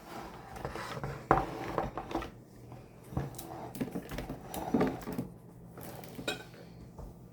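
Kitchen clatter of a cooking pot being moved and set down on the stovetop: a run of irregular metal knocks and scrapes, the sharpest about a second in.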